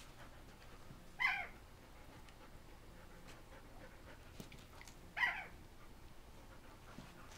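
A dog gives two short, high-pitched yips about four seconds apart, excited barking during rough play.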